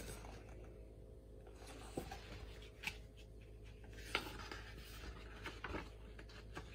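Quiet room tone with faint rustles and a few soft taps from a hardcover picture book being handled.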